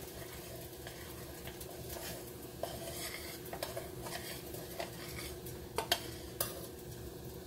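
Metal spoon stirring hot butter sauce in a stainless steel saucepan, scraping and giving scattered clinks against the pan, a few sharper ones around six seconds in, over a faint sizzle.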